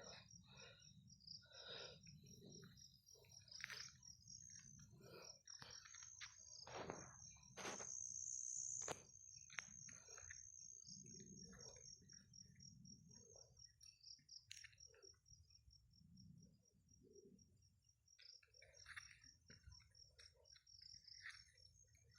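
Near silence with faint crickets chirping in a steady high trill, scattered soft clicks and a brief hiss about eight seconds in.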